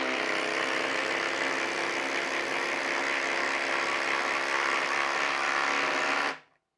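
Flex brushless cordless impact driver hammering steadily under full load as it drives a 4-inch lag screw into solid wood through a socket. It cuts off suddenly a little past six seconds in, once the lag is seated.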